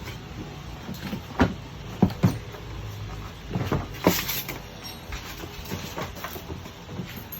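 Toy parts being handled and fitted together: a series of sharp knocks and clicks, about five, scattered over a few seconds.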